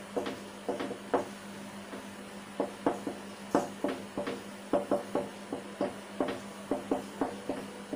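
Felt-tip marker writing on a whiteboard: an irregular string of short taps and scrapes as each letter is stroked on, over a faint steady electrical hum.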